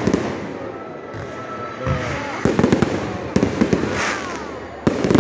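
Fireworks going off in quick clusters of sharp crackling pops, three or four volleys with steady background noise between them.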